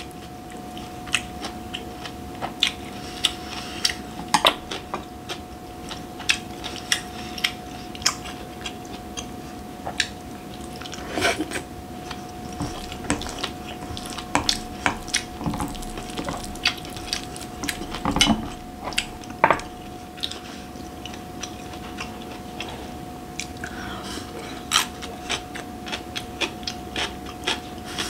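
Close-up eating sounds: chewing mouthfuls of curry rice, with a wooden spoon and wooden chopsticks clicking and scraping against a glass bowl and a glass jar many times. A steady faint hum runs underneath.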